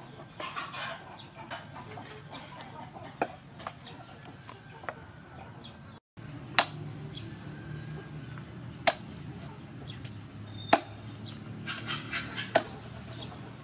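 Cleaver chopping raw chicken on a wooden chopping block, with single sharp chops about two seconds apart in the second half. Chickens cluck in the background.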